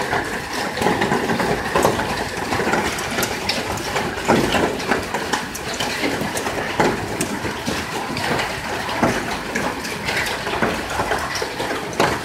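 Heavy hailstorm with rain: a dense, steady rush of falling water, thick with the sharp ticks and clatter of hailstones striking surfaces.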